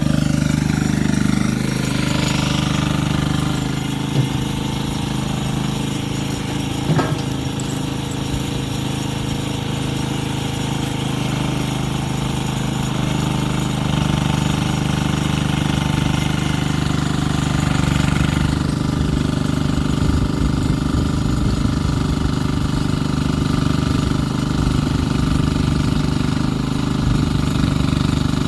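A nearby engine-driven machine running steadily with a low, even drone. Two short knocks come through about four and seven seconds in.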